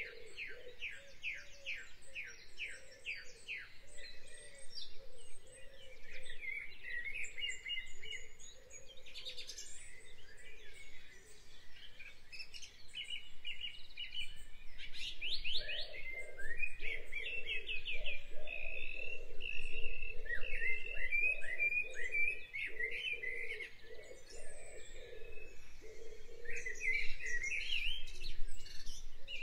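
Several birds chirping and singing at once, in rapid runs of short high chirps and trills, over a lower pulsing call that grows louder about halfway through.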